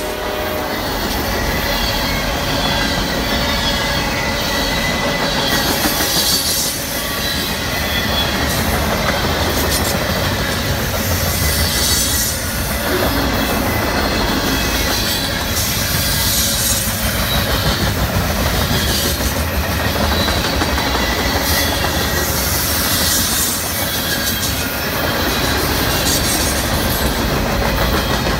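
Norfolk Southern freight train's cars rolling steadily past: a continuous rumble of steel wheels on rail, with repeated high-pitched wheel squeals every second or two.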